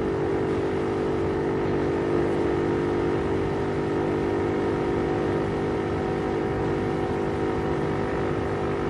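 Motorcycle engine running at a steady cruising speed: an even drone with rushing air noise, heard from the rider's helmet.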